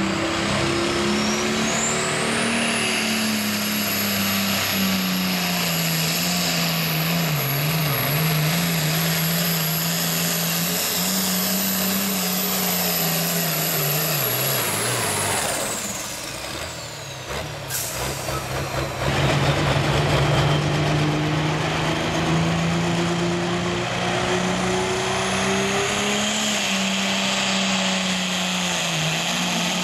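Turbocharged diesel pulling tractors running at full power under sled load. The first engine runs hard with a high turbo whistle that climbs in the opening seconds and falls away about fifteen seconds in as it shuts down at the end of its pull. After a short lull, a second tractor's engine takes up the load and its whistle rises again near the end.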